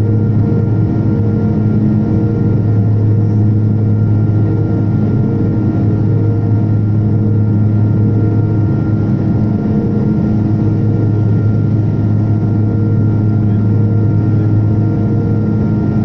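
Cabin noise of a turboprop airliner on approach to land: the engine and propeller give a loud, steady low drone with a thin, steady high whine over it.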